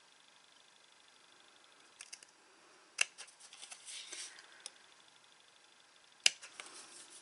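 Small craft scissors snipping the corners out of a scored cardstock strip: one sharp snip about three seconds in and a louder one near the end, with paper rustling after each.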